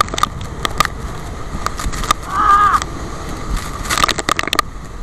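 Wind buffeting the microphone and the rush of sea spray as a banana boat is towed at speed, with many sharp gusts and splashes hitting the microphone. A rider gives a short cry about halfway through.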